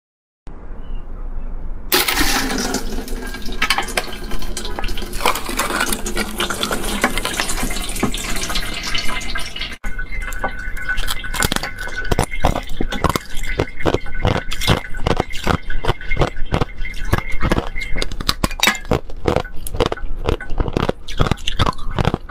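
Liquid gushing and splashing into a bowl for several seconds from about two seconds in, as the shell of a partly frozen water balloon is opened. From about ten seconds in, a run of sharp cracks and clinks as thin pieces of the clear ice shell are snapped off by hand.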